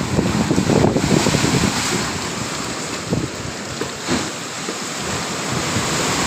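Strong wind buffeting the microphone over the steady wash of storm-driven sea waves.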